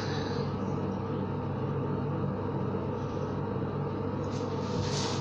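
Steady low mechanical hum with an even hiss, unchanging throughout, and a brief rustle near the end.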